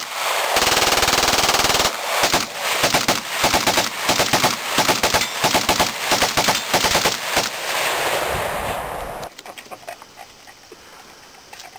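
Full-automatic gunfire from an AK-pattern rifle and a pistol: a continuous, very fast burst for about two seconds, then a long string of rapid shots that stops about nine seconds in.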